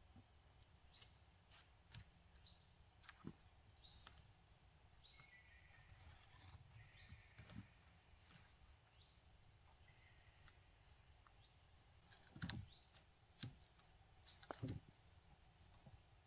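Faint, scattered knocks and clicks of wooden poles being handled and set onto a stacked-pole bed frame, with a few louder wooden thumps near the end.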